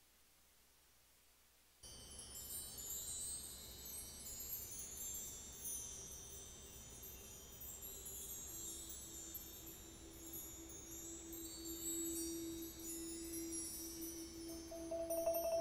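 High metal chimes shimmering in a cluster of overlapping tinkling tones, starting about two seconds in after near silence. A low sustained note joins about halfway through, and a pitched mallet-percussion note comes in near the end.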